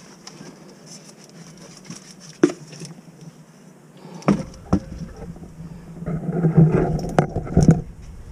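A few sharp knocks, then about two seconds of rustling and bumping with more knocks near the end, over a steady low hum: the camera being handled and moved about.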